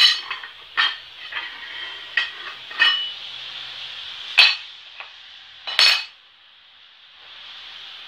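Steel angle and bar pieces set down and shifted on a tile floor: a string of sharp metallic clanks, about six over six seconds, each ringing briefly. Quieter in the last two seconds.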